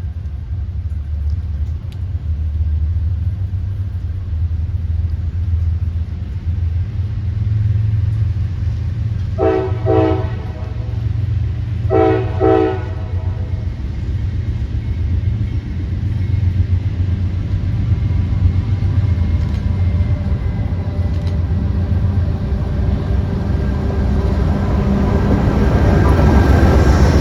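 Diesel locomotive rumbling, giving two short air-horn blasts about ten seconds in, and growing louder near the end as the train draws closer.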